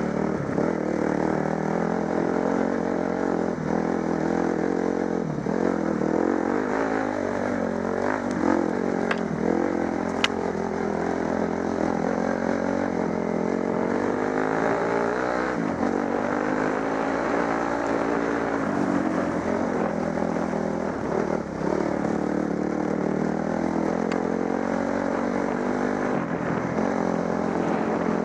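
Dirt bike engine running under load on a muddy trail, its pitch rising and falling repeatedly as the throttle is opened and closed. A sharp click about ten seconds in.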